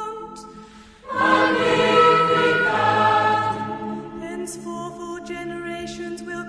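Choral music as a soundtrack: voices holding sustained chords, dipping low about a second in, then the full choir coming in loudly.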